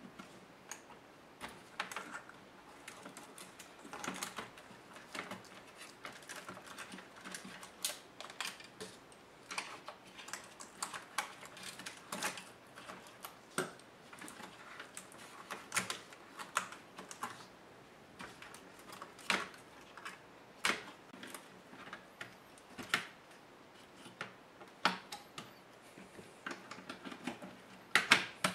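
Irregular small clicks and taps of laptop parts and small tools being handled during disassembly of an ASUS G73, with a louder cluster of knocks near the end.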